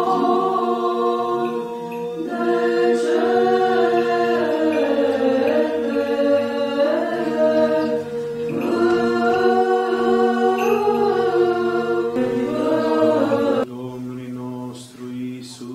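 A choir sings Orthodox liturgical chant a cappella, with moving melody lines over a steady held drone note. The singing drops in loudness near the end.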